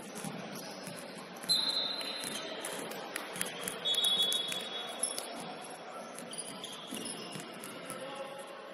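Referee's whistle blown twice, two short high piercing blasts about two seconds apart, over the echoing background noise of a basketball game on a gym court.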